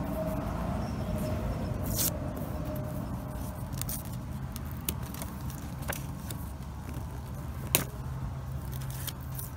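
Hands handling a taped cardboard box, picking at the tape, with a few sharp clicks and ticks, the sharpest about two seconds in and just before eight seconds, over a steady low rumble.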